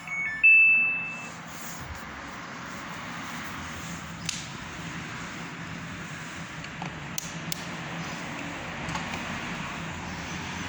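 A single electronic beep about half a second in, typical of a Samsung WW90K5410UX washing machine's control panel, followed by a steady low hum and hiss with a few faint clicks.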